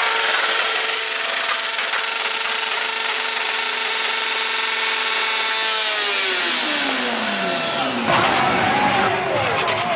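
A standing four-cylinder sport motorcycle engine held at high revs for about six seconds, then the revs fall away over a couple of seconds as the throttle closes. Voices from the crowd near the end.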